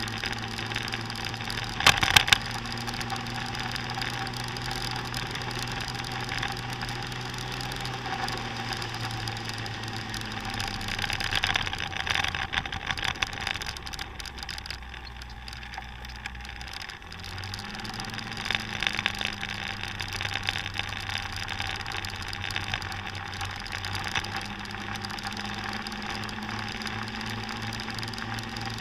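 Motor scooter engine running at road speed, with wind and road noise on the microphone. A sharp knock about two seconds in; about halfway through the engine note drops lower for a few seconds, then picks back up.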